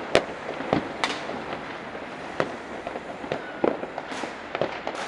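Distant fireworks going off over a city: scattered sharp bangs and pops, about nine in five seconds at uneven gaps.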